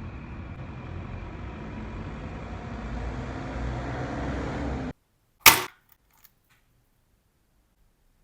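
A steady whirring noise with a faint high whine, slowly getting louder, that cuts off abruptly about five seconds in. About half a second later comes a single loud, sharp knock, then a couple of faint clicks.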